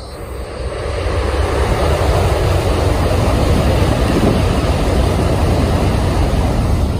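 A Tokaido Shinkansen high-speed train passing at close range: a loud rushing roar with a deep rumble that builds over about the first second and then holds steady as the cars go by.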